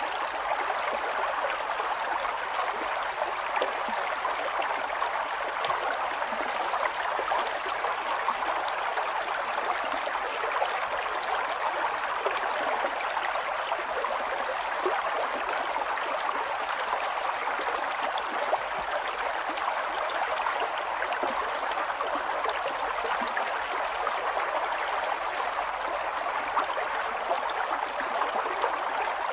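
Steady stream of flowing water, babbling and trickling evenly without a break.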